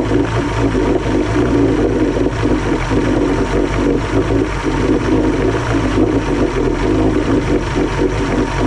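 1976 Johnson 135 hp two-stroke outboard motor running steadily, fed fuel dosed with Seafoam.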